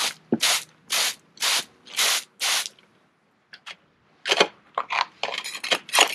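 A vinegar-soaked terracotta tile being scraped clean by hand with a hand tool. Six even strokes come about half a second apart, then a short pause, then quicker, irregular strokes.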